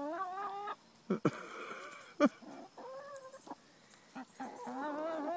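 Hens clucking in warbling, wavering calls, quiet for a moment in the middle, with two sharp taps about one and two seconds in.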